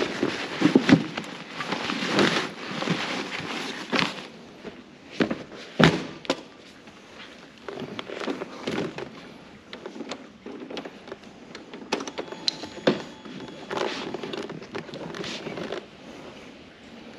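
Handling noises at a scooter: a backpack rustling and being shifted, scattered knocks and small clicks, and one sharp thunk about six seconds in.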